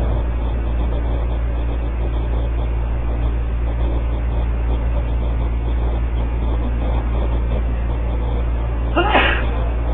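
Steady low hum with a constant background rumble and no distinct events, with a brief voice sound about nine seconds in.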